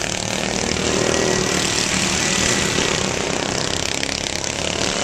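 Racing riding lawn mowers with small engines running hard as they pass close by, their engine pitch shifting as each goes past.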